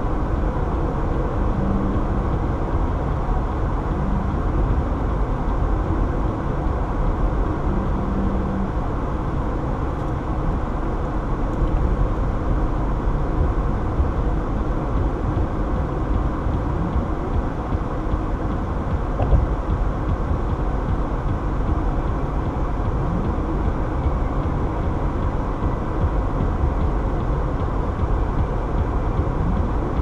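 Steady road noise inside a car cruising at highway speed: tyre and wind noise, even in level and heaviest in the low end.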